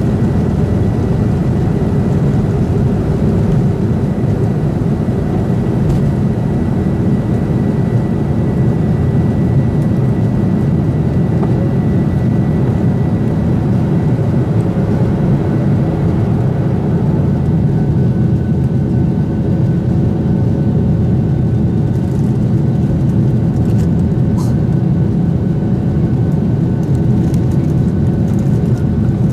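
Cabin noise of a Boeing 737-800's CFM56-7B turbofan engines at takeoff power during the end of the takeoff roll, liftoff and initial climb. It is a loud, steady rumble with a thin high whine over it that fades about halfway and is followed by a slightly lower one.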